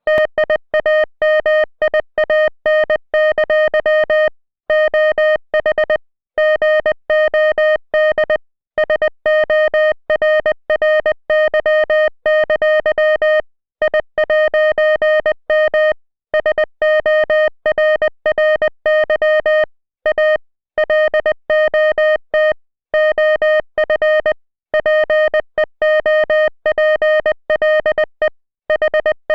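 International Morse code sent as a steady beeping tone, keyed on and off in rapid dots and dashes, with short pauses between words.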